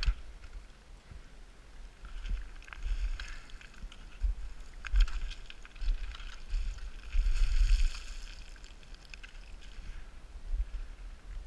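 Loose scree stones crunching and sliding underfoot on a fast descent of a steep scree gully, with a longer rush of sliding stones about seven seconds in. Wind buffets the microphone in gusts.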